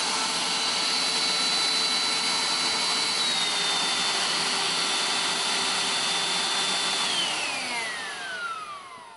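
GWELL G5 cordless handheld vacuum cleaner running with a steady high motor whine and rushing air. It is switched off about seven seconds in, and the whine falls in pitch as the motor spins down.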